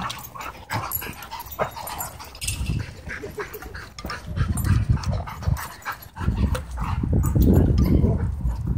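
Several dogs, huskies among them, whining, yipping and barking as they chase and wrestle at close range. A low rumbling noise comes in about halfway through and is loudest near the end.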